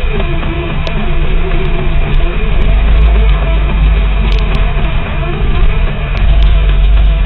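Loud rock music with guitar and drums over a steady low rumble.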